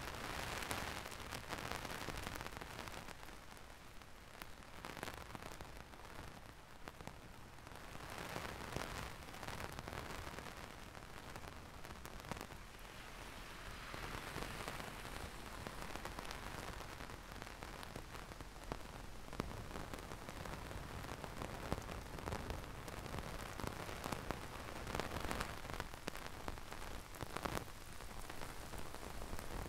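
Heavy rain falling and pattering on surfaces as a steady hiss, swelling and easing every several seconds.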